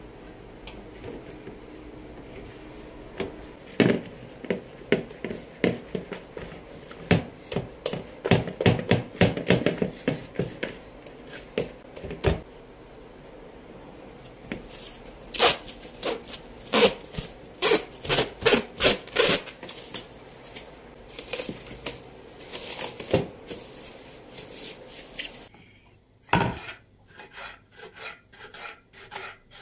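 Kitchen food preparation on a wooden board: irregular scraping, rubbing and tapping strokes. Near the end the background hiss drops away and the strokes come evenly, about two a second.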